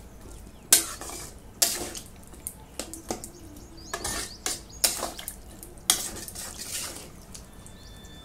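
Metal spatula scraping and clinking against a metal kadai while stirring chunks of jackfruit and potato in a watery curry: a string of irregular strokes roughly a second apart, thinning out near the end.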